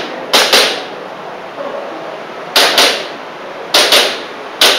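Airsoft pistol shots fired in quick pairs, double taps on targets during an IPSC-style course of fire. Seven sharp cracks come as three pairs about a second or two apart, then a single shot near the end.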